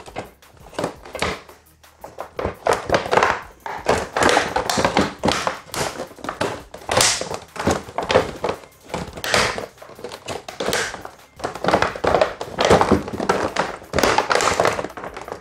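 Stiff clear plastic blister pack being handled: irregular crackles and dull knocks as a heavy metal car wheel lock is worked about inside it, being pulled out through a small cut.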